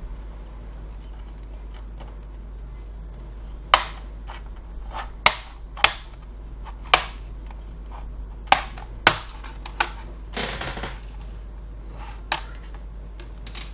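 Plastic retaining clips of an ASUS F541U laptop's keyboard deck snapping loose one after another as a pry tool is worked along the case seam: about ten sharp snaps starting about four seconds in, with a short scrape of the tool a little past the middle.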